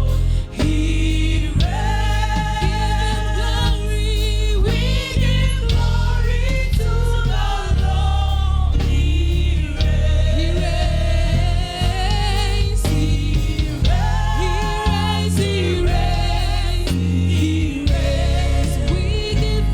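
Gospel worship music: a choir and lead voices singing held, wavering notes over a heavy bass accompaniment.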